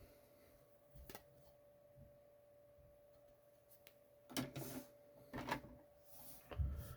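Hard plastic graded-card slabs being handled: a light click about a second in, then a few short knocks and rubs in the second half.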